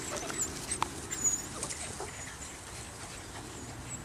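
Scattered short, high-pitched squeaks and chirps from six-week-old Belgian Malinois puppies.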